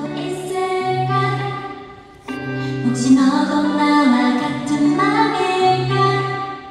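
A woman singing a slow Korean ballad live into a microphone, with soft instrumental backing. She sings two phrases with a short breath gap between them about two seconds in.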